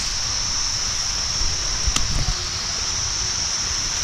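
Forest ambience: a steady high-pitched insect chorus over low wind rumble on the microphone, with a single click about two seconds in.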